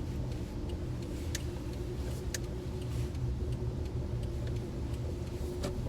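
Inside a moving car: a steady low engine and road rumble with a steady hum, and a few faint clicks.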